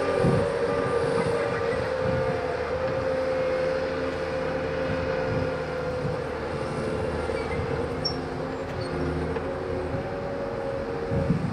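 Heavy diesel construction machinery running steadily: a constant engine drone with a sustained hum over a low rumble.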